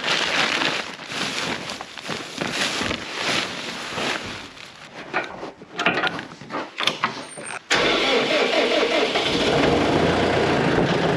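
Irregular rustling noise, then about eight seconds in a vehicle engine comes in suddenly and runs steadily.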